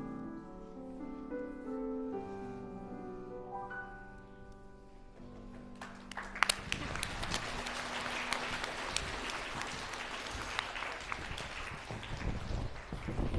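Piano music for a slow dance, ending about five seconds in, followed by audience applause with many sharp claps.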